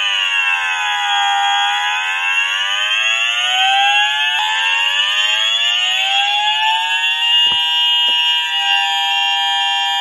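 Apollo Discovery fire alarm sounders set to tone 13, the emergency warning siren: a loud wailing tone that slowly dips and rises in pitch. Two short clicks near the end.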